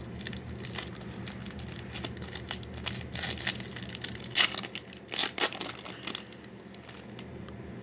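Plastic packaging of a hockey card pack being torn open and crinkled by hand: a run of irregular crackles and rustles, loudest in a few sharp crinkles past the middle, stopping shortly before the end.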